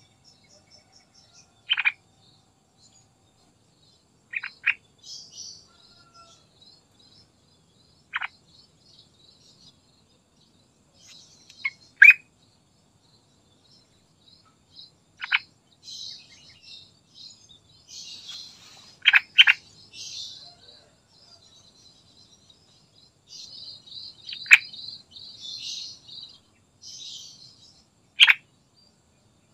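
Yellow-vented bulbul calling: about ten short, sharp, falling notes at irregular intervals, with softer high twittering between them that grows busier in the second half.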